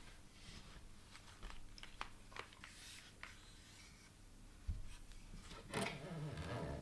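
Faint, irregular clicks, taps and light rubbing of small hard parts being handled, likely pieces of a mechanical keyboard, with a soft thump a little past halfway and a busier patch of clicking and rustling near the end.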